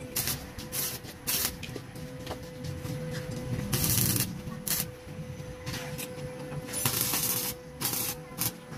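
Stick welding arc crackling and sputtering in a series of short bursts as joints of a steel-bar frame are tack-welded.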